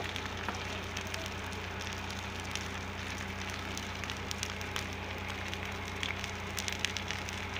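Wooden garden house fully ablaze, the fire crackling with frequent sharp pops over a steady noise.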